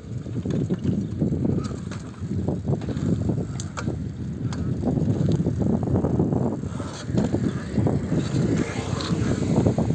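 Uneven low rumble of a bicycle ride on an asphalt road, with road and air noise on the microphone and a few light clicks and rattles.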